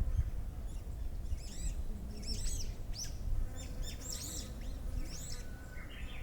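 Wild birds chirping in quick clusters of short, high notes, about five bursts over a few seconds, over a steady low rumble.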